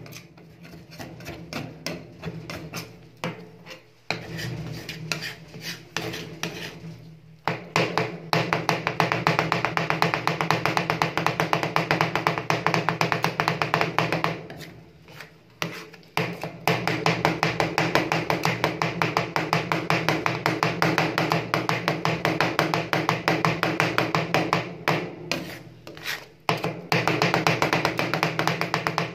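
Two metal spatulas rapidly chopping and scraping ice cream on a steel freezing plate: fast tapping clacks, several a second, with a few brief pauses, over a steady low hum.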